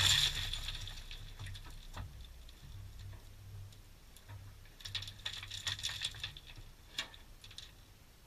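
Scattered clicks and pattering of debris falling as a 6-inch drill bit breaks through the rock ceiling into the cave passage, over an on-and-off low rumble from the drill. The clicks are densest at the start and again around five to six seconds in.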